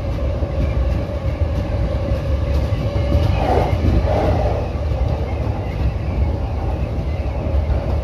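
JR E231 electric commuter train running along the track, heard from the driver's cab: a steady low rumble of wheels on rail with a faint steady hum, and a brief louder, brighter swell about halfway through.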